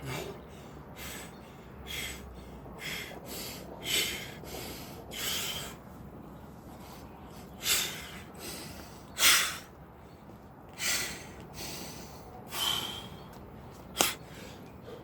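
Heavy breathing from hard exertion: about fifteen short, forceful breaths through nose and mouth, at uneven spacing, with one sharp knock near the end.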